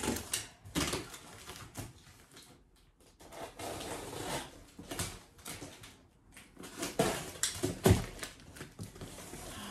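A cardboard box being cut open with a small blade along its packing tape: scraping and rustling, then the cardboard flaps pulled open with a few sharp knocks near the end.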